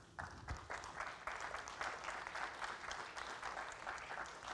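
Audience applauding: a few claps swell into steady applause within the first second, then begin to thin out near the end.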